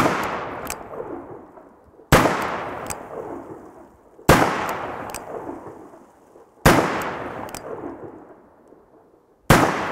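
Five shots from a .500 S&W Magnum revolver firing reduced 70%-charge Alliant 2400 loads, spaced about two to two and a half seconds apart. Each sharp report is followed by an echo that dies away over about two seconds.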